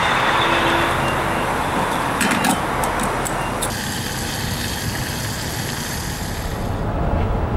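Gas pump nozzle handled and pushed into a car's filler neck with a few sharp clicks, then fuel flowing into the tank as a steady hiss that stops near the end.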